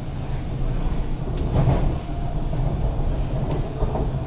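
MTR East Rail line R-Train running, heard from inside the passenger car: a steady low rumble of wheels on the track, with a single knock about a second and a half in.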